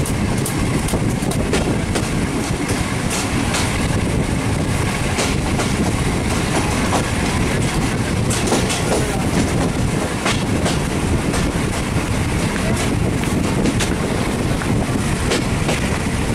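Broad-gauge passenger coaches running along the track, heard from a window beside the coach: a steady loud rumble with wheels clicking irregularly over the rail joints.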